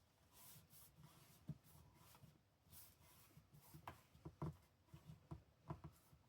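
Faint rustling of paper and card being handled, with a series of light taps and clicks in the second half.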